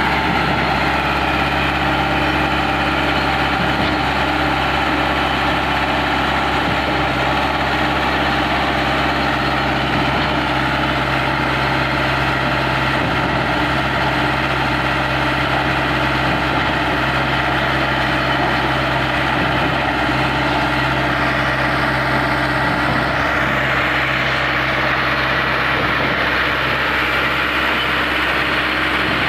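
Heavy concrete-plant machinery running steadily with a constant low hum, its pitch unchanging.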